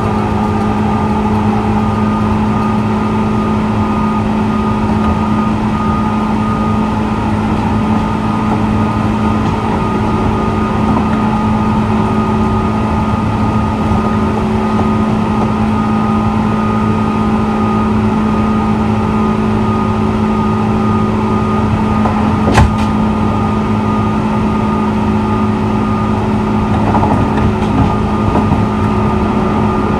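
JR 201 series electric train standing at the platform, its on-board equipment giving a steady hum: a low drone with a fainter higher whine. A single sharp click about three quarters of the way through.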